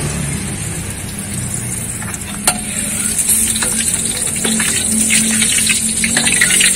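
Utensils scraping and clicking on ceramic plates as a ketoprak vendor mixes peanut sauce and cuts ingredients into the dishes, over a steady background hiss. There is one sharp click about two and a half seconds in, then a run of light clicks and scrapes.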